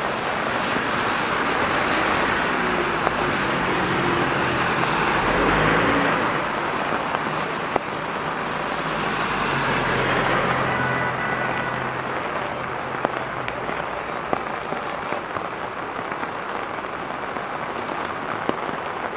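Heavy rain pouring down on a wet street, a steady hiss throughout. Twice, around five and ten seconds in, a vehicle drives past close by, its engine and tyres swishing through the water on the road.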